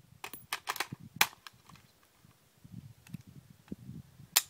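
AR-15 rifle shots: two sharp reports about three seconds apart, one about a second in and one near the end, with a few fainter cracks just before the first.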